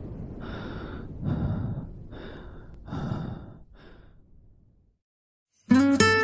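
About five breathy exhalations or sighs, roughly one a second, growing fainter and dying away, then a short silence. Music starts near the end.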